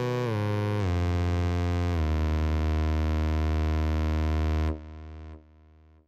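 Closing note of a hip-hop track: a synthesizer tone steps down in pitch, settles on a low held note, then cuts off sharply about four and a half seconds in, leaving a short tail that fades in steps.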